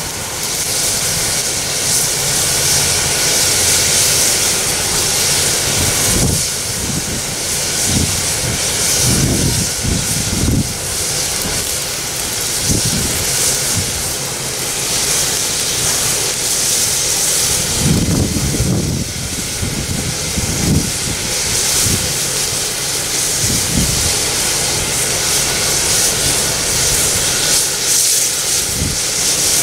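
Steam hissing steadily from a standing 0-6-0 steam switcher locomotive, the 1923 Montreal Locomotive Works-built former Essex Terminal Railway No. 9. The high hiss swells and eases, with irregular low thuds now and then.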